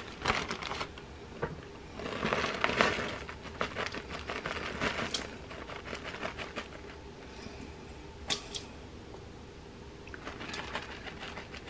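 Plastic zip-top bag crinkling and rustling as shredded cheddar is shaken out of it into a stainless steel mixing bowl, with scattered light ticks and taps.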